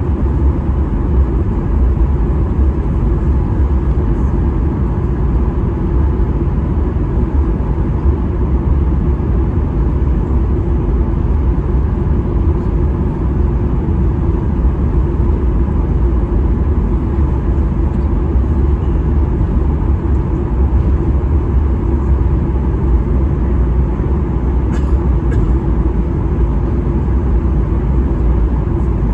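Steady low rumble inside the cabin of a Boeing 737-800 taxiing on the ground, from its CFM56-7B turbofan engines at taxi thrust and the wheels rolling over the taxiway.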